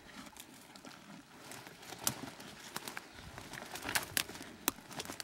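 Scattered sharp clicks and light knocks with faint rustling: movement over rock and dry brush, thickening near the end.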